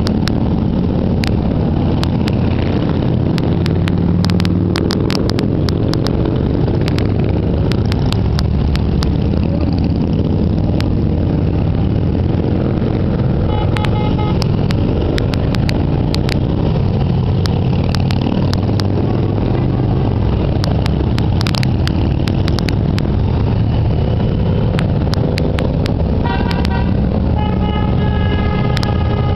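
A continuous stream of cruiser and touring motorcycles riding past with their engines rumbling steadily. Horns toot briefly about fourteen seconds in, and again repeatedly near the end.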